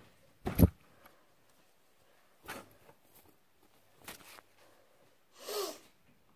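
Plush toys being handled and set down right by the microphone. A loud thump comes about half a second in, softer knocks and rustles follow, and there is a longer rustle near the end.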